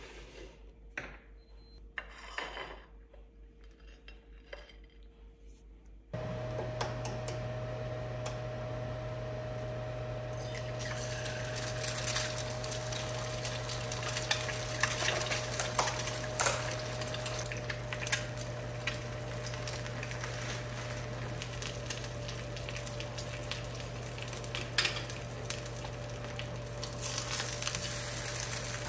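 An egg frying in a small pan on a gas burner: a steady sizzle that thickens into dense crackling about ten seconds in, over a constant low hum, with a few sharp clinks of a metal spatula against the pan. Before that, for the first several seconds, only a few quiet clicks and taps at a pop-up toaster.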